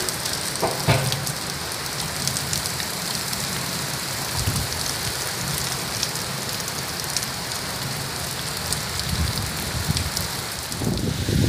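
Heavy rain pouring steadily onto the ground, with a single knock about a second in and a louder low rush building near the end.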